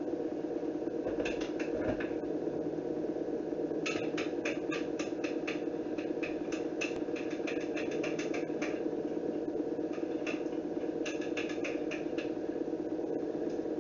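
Spoon clinking rapidly against the inside of a mug while coffee is whipped by hand, in three runs of quick taps, the longest about five seconds. A steady low hum runs underneath.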